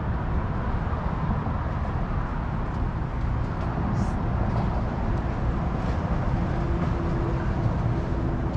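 Steady low rumble of a moving vehicle, with a faint steady whine coming in about three and a half seconds in.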